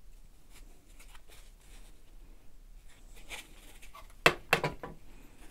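Light handling of a hollow plastic vacuum-cleaner housing half and its foam insert, then two sharp knocks a little past four seconds in as the housing half is set down on a metal worktable.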